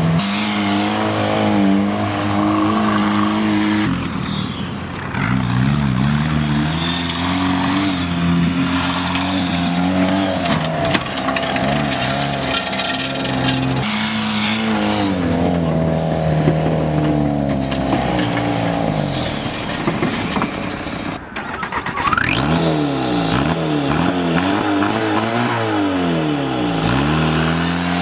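Volkswagen New Beetle TDI's four-cylinder turbodiesel engine revving hard, its pitch rising and falling again and again as the car slides through donuts in a dirt lot, with the tires spinning in the dirt. Near the end it is blipped up and down in quick succession.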